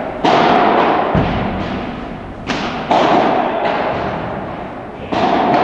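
Padel balls struck by rackets and bouncing on the court: several sharp hits at irregular intervals, each followed by a long echo in the indoor hall.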